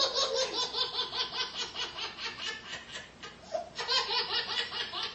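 A baby laughing hard in a quick, rhythmic string of laughs: one long bout, a brief pause a little past halfway, then a second bout.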